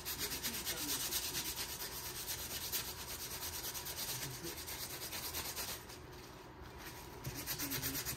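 Brisk, rapid scrubbing of cloth as small car interior trim is wiped clean by hand, with a short break near the end before the strokes start again.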